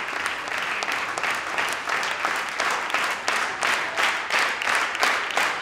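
Audience applauding. About halfway through, the clapping falls into a steady unison rhythm of about three claps a second.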